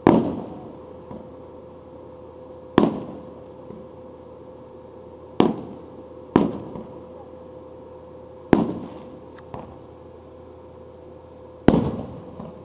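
Aerial firework shells bursting: six loud bangs, one to three seconds apart, each trailing off in a rolling echo, with a few fainter pops between them.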